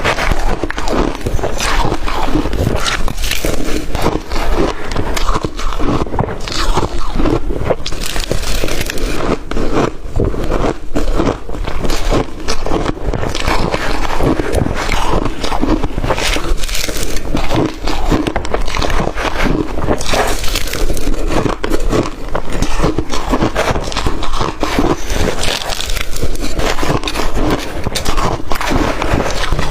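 Close-up crunching of blender-crushed ice as it is bitten and chewed, a dense run of irregular crackling crunches.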